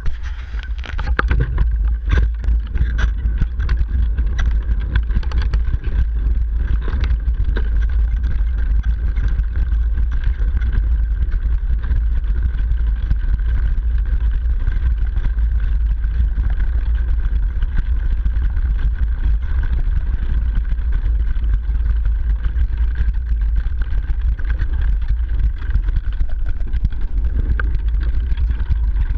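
Loud, steady low rumble of a 29er mountain bike rolling downhill over snow, picked up through a direct-mounted action camera: tyres crunching snow and suspension movement carried into the mount. A few sharp knocks come in the first few seconds.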